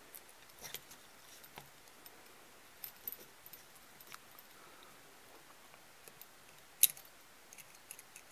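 Faint, scattered small clicks and taps of a 1.5 mm hex driver turning a tiny screw to mount a servo in small RC helicopter mechanics, with one sharper click near the end.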